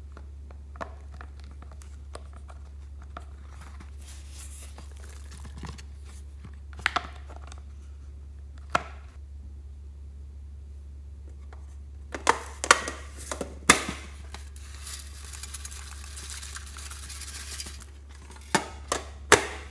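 Handling of a plastic toy case and paper card over a glass dish: scattered plastic clicks and crinkling, a few sharp clicks and taps about two-thirds in, then a rustling hiss for a few seconds as sequins and small beads are poured from the case into the slime, and more sharp clicks near the end.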